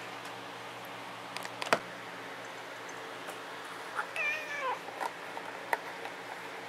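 A domestic cat meows once about four seconds in, its pitch wavering and then falling. A sharp click comes a couple of seconds before it and another just after, over a steady hiss.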